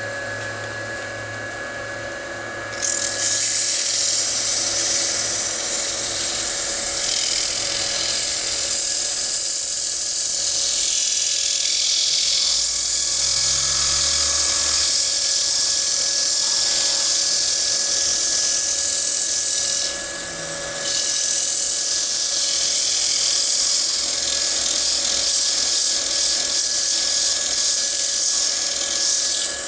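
Wood lathe running with a steady whine while 220-grit sandpaper is pressed against the spinning wooden bowl, a light sanding of the dried finish coat. The loud sanding hiss starts about three seconds in, breaks off briefly about two-thirds of the way through, then resumes.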